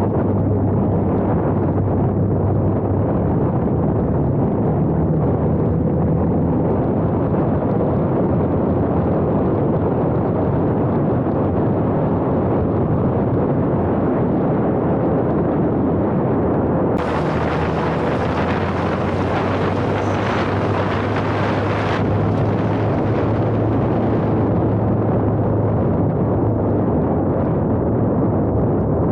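Off-road side-by-side engine running under wind buffeting on the microphone while driving, a loud steady rumble. A brighter hiss cuts in suddenly partway through and stops about five seconds later.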